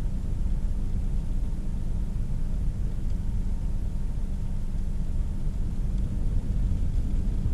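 Steady low rumble of storm wind and heavy surf, with no single wave crash standing out.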